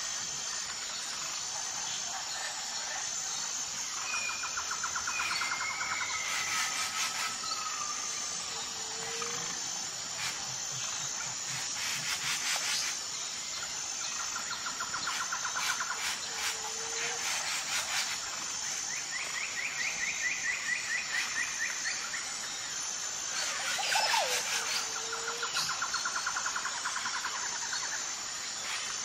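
Natural ambience: insects chirping in a steady, high, even pulse, with birds giving rapid trills every few seconds and a few short, lower calls.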